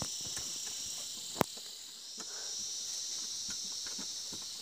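Steady high-pitched chirring of insects that fades out for a moment about one and a half seconds in, then resumes. Scattered light clicks throughout, with one sharp knock about 1.4 seconds in standing out as the loudest sound.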